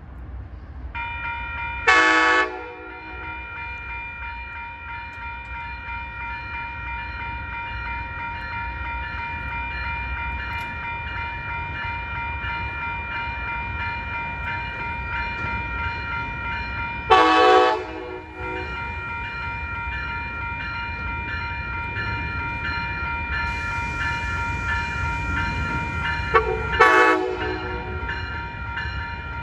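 An approaching Siemens Charger diesel locomotive sounds its air horn: a short blast about two seconds in, another about seventeen seconds in, and two quick blasts near the end, over a low engine rumble. Between the blasts a grade-crossing warning bell rings steadily from about a second in.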